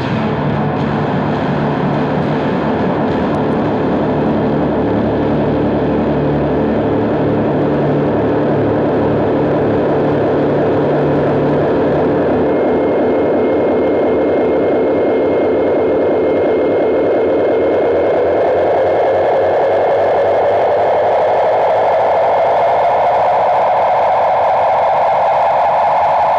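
Loud, distorted, noisy background music, dense and droning, with a steady high tone joining about halfway through and a drone that rises slowly in pitch over the last third.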